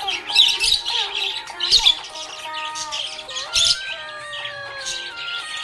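Budgerigar chirping in quick, sharp, high notes throughout, over background music with a stepping melody.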